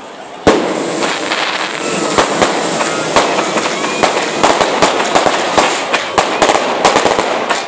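Fireworks going off: a sudden loud bang about half a second in, then a dense, rapid run of crackling pops and bangs as more shells are fired.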